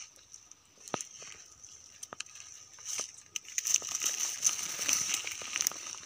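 Dry grass, twigs and fallen leaves crunching and crackling underfoot: a few single snaps at first, then denser crackling from about halfway through, over a steady high-pitched hiss.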